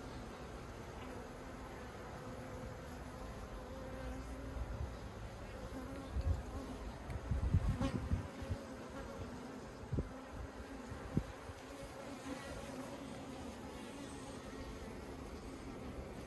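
Honeybees buzzing steadily in an open hive, a hum that wavers slightly. A few dull low thumps and knocks come in the middle, the loudest about halfway through.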